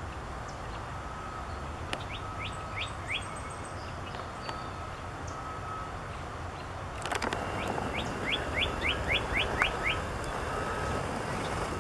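Male northern cardinal singing: a phrase of four slurred whistles, then after a pause a longer, louder run of about nine quicker whistles.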